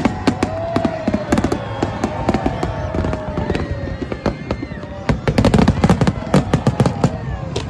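New Year fireworks display: a rapid, continuous barrage of bangs and crackles, growing denser about two-thirds of the way through, with music and voices underneath.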